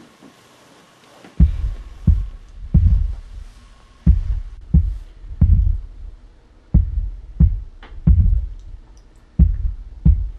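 Heartbeat sound effect: deep, heavy thumps in a steady repeating rhythm, starting about a second and a half in, over a faint steady hum.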